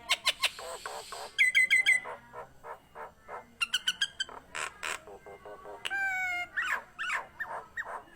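Nias hill myna singing a rapid, varied run of sharp clicks and short whistled notes repeated in quick series, with a long, slightly falling whistle about six seconds in.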